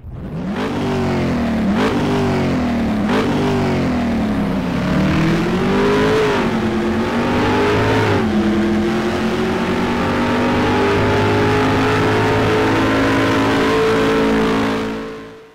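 A car engine revving hard: three quick throttle blips, then longer climbs in pitch, settling into a high, nearly steady run that fades out near the end.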